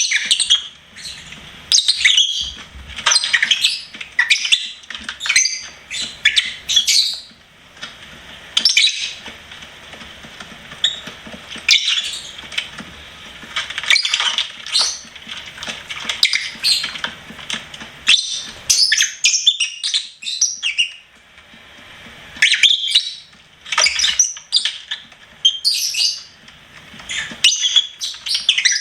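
Pet lovebirds chirping, a rapid run of short, high-pitched chirps and squawks in irregular clusters, with brief lulls.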